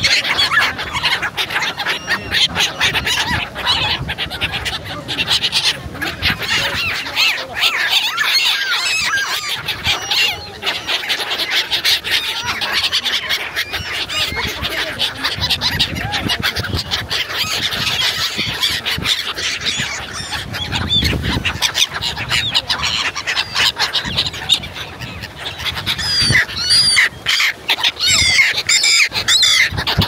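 A large flock of black-headed gulls calling, with many shrill cries overlapping continuously.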